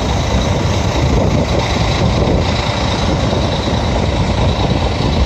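Ferry engines underway, a steady low drone heard inside the passenger cabin, with a thin high whine running through it.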